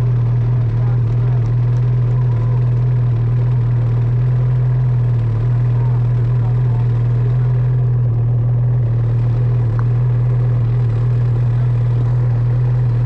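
Snowmobile engine idling with a steady low drone that holds one pitch and level throughout.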